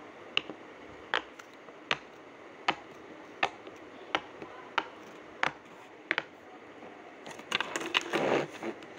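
Bubbles of a silicone pop-it fidget toy being pressed one at a time, a sharp pop about every three-quarters of a second. Near the end, a quicker run of pops and a brief rustle of handling.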